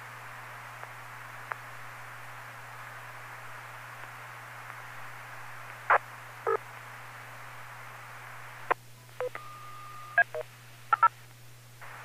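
FM ham radio remote base receiver audio: a steady hiss of an open, empty channel over a low hum, with a few faint clicks. There are two short blips about six seconds in, then a cluster of short beeps and a held steady beep around nine to eleven seconds in.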